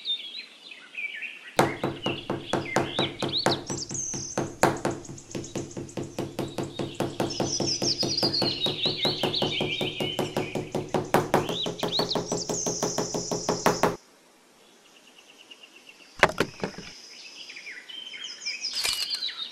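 Rapid, even knocking, about five knocks a second with a low hum under it, starting about a second and a half in and stopping abruptly about fourteen seconds in, with birds chirping over it. Two short knocks or rustles follow near the end.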